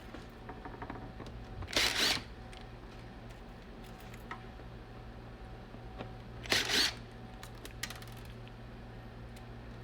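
Cordless impact driver with a T7 Torx bit running in two brief bursts, about four seconds apart, backing out the case screws of a 2007 iMac. Small handling clicks come between the bursts, over a steady low hum.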